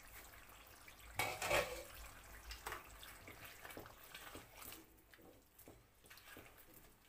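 Cooking in a kadai: a louder clatter of metal cookware about a second in, then light clicks and scrapes of stirring over the faint bubbling of the simmering chicken masala.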